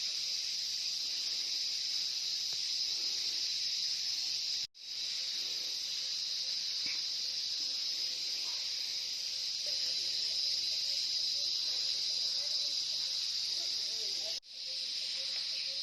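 Steady chorus of forest insects, a continuous high shrill hiss, dropping out for an instant twice.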